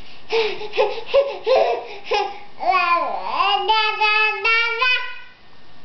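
Baby babbling a quick run of repeated syllables like "blego-blego", then drawing them out into a few sliding and held sing-song notes.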